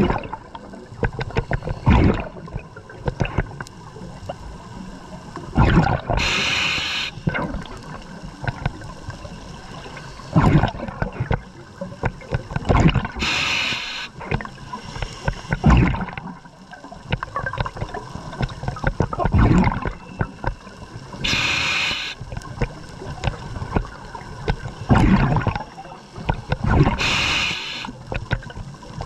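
A scuba diver breathing through a regulator underwater, with a hissing breath and gurgling bubbles roughly every seven seconds, four breath cycles in all.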